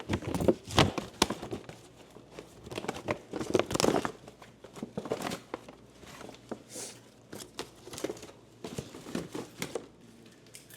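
Plastic snack bags crinkling as they are handled, in irregular bursts that are busiest in the first four seconds.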